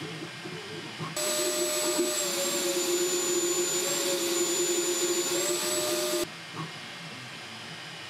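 Delta 3D printers printing, cut back and forth: the quieter Flsun V400 for about the first second, then the much louder Flsun S1, whose 40,000 RPM printhead cooling fan gives a strong hiss with a high steady whine. The whine dips slightly in pitch midway and returns before an abrupt switch back to the quieter V400 about six seconds in.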